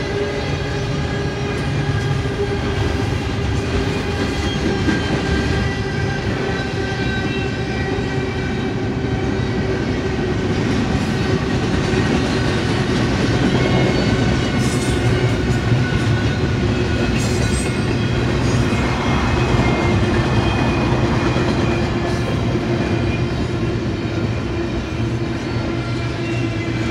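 Double-stack container train's well cars rolling past close by: a continuous rumble of steel wheels on rail with a steady whine over it, growing a little louder through the middle.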